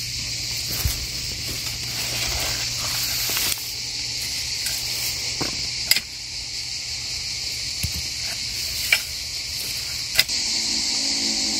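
Steady high chirring of summer insects, with about half a dozen short sharp clicks scattered through.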